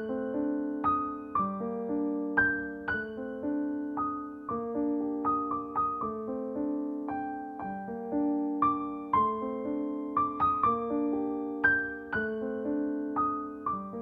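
Gentle background music played on piano: single notes and chords struck one after another, each left to ring and fade.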